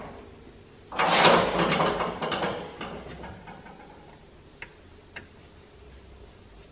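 Hand tools being handled against metal: a sudden rattling, clicking burst about a second in that fades over about two seconds, then two single light clicks.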